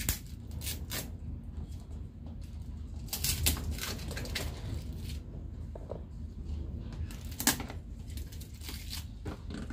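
Paper and card packaging being handled: rustling and crinkling, with a few sharp crackles, the loudest about three and a half seconds in and again near the end, over a steady low hum.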